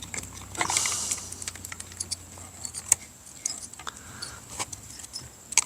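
Small parts and hand tools being handled on a workbench during disassembly of a two-stroke weed whacker: scattered light clicks and rattles, with a short scraping sound about a second in.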